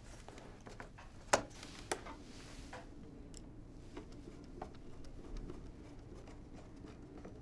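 Faint handling sounds of a respirator's fabric shroud and its jaw being fitted: two sharp clicks about a second apart, a short rustle of fabric, then faint light ticks as the jaw is screwed into place.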